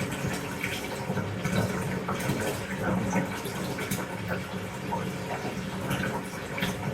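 Bath tap running, water pouring steadily into a bathtub.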